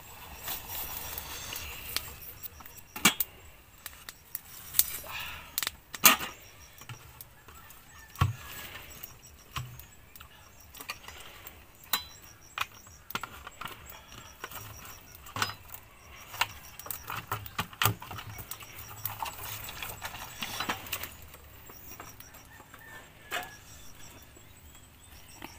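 Irregular clinks, knocks and rustling of camping gear being packed into a woven bamboo basket: a metal pot, plastic bottles and a knife knocking together and against the basket.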